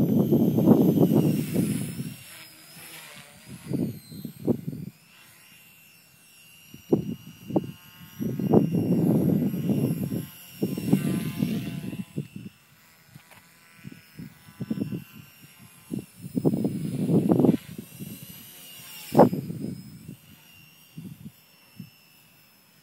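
Blade mCP X micro RC helicopter flying at a distance: a faint high motor whine from its brushless main motor and twin tail motors, rising and falling in pitch as it manoeuvres. Irregular gusts of wind on the microphone come and go every few seconds and are the loudest sound.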